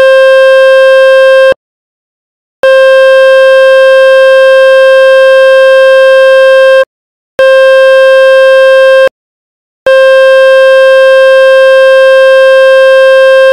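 Loud, buzzy electronic test tone from a tone-generator app, played to shake water out of a phone's speaker. It cuts out three times for under a second each, about a second and a half, seven and nine seconds in.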